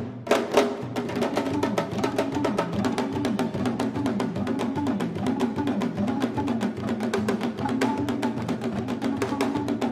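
Live West African drumming: a fast, dense rhythm of hand-struck drums, with a pitched tone underneath that bends up and down.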